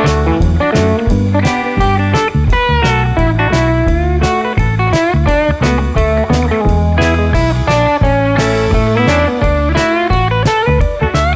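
Background music: blues-rock with electric guitar, bending notes over a steady drum beat.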